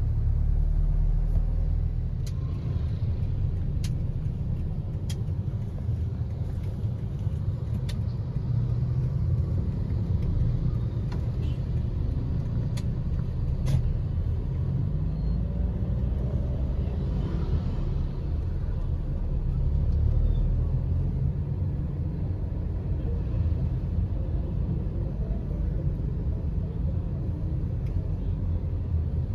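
Low, steady road rumble inside a moving car's cabin, with a few faint clicks.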